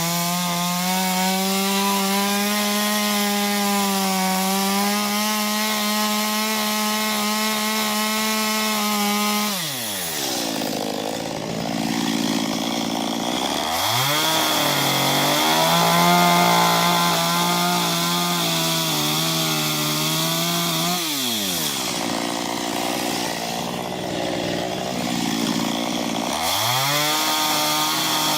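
Small chainsaw with a 15-inch bar cutting into an ash trunk, running at steady high speed. About ten seconds in and again after about twenty seconds, the engine drops steeply toward idle and then revs back up to cutting speed.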